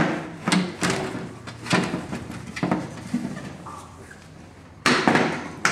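Plastic panels of a portable table knocking and rustling as they are handled, with the shelf being pushed down onto its locking lugs: a series of short knocks, the loudest just under five seconds in.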